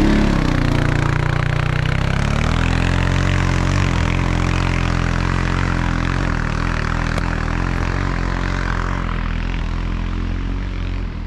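ATV engine revving as the quad pulls away, then running steadily under way in low gear, easing off slightly near the end.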